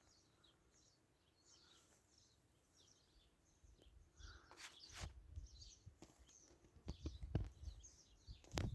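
Faint bird chirps, short and scattered, over near silence. From about four seconds in, a low rumble on the microphone joins them, with a few sharp clicks.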